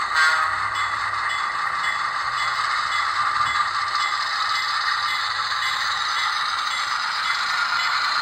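HO-scale SW7 diesel switcher model running along the track, its onboard sound decoder playing a steady diesel engine sound through the small speaker, mixed with the rattle of its wheels on the rails.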